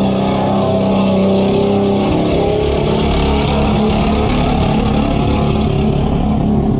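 Old pickup truck's engine running hard under load as it ploughs through deep muddy floodwater, with water splashing around it. The engine note shifts about two seconds in.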